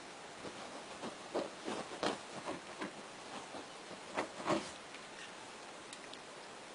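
A string of light knocks and rustles over a steady hiss, loudest about two seconds in and again twice just past four seconds.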